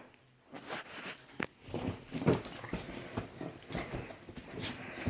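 Pet dogs making a string of short, uneven noises, small grumbles and whines among scattered clicks and scuffles.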